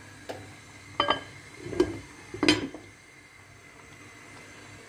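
A cooking pot being covered with its lid and set on the stove: a ringing clink about a second in, then two knocks.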